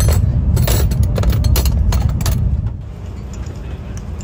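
Steady low rumble of a high-speed train from inside the carriage, with a quick run of sharp clinks and rattles for the first two and a half seconds. After that the clinking stops and the rumble drops noticeably in level.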